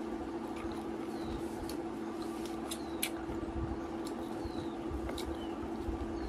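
Mouth sounds of someone eating: a few sharp clicking smacks while chewing, over a steady low hum and some faint, short, falling chirps.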